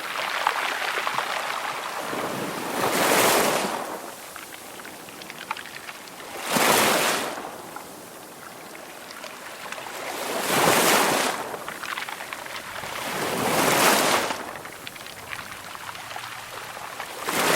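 Ocean surf: waves breaking and washing in, a surge of hiss that swells and fades about every three to four seconds, five times.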